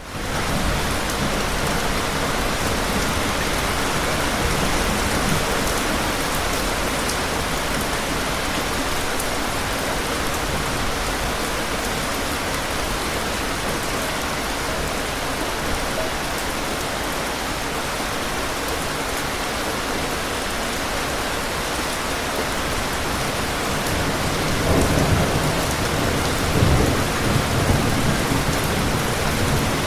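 Steady, heavy rainfall: a dense, even hiss of rain on surfaces. A few low rumbles come in near the end.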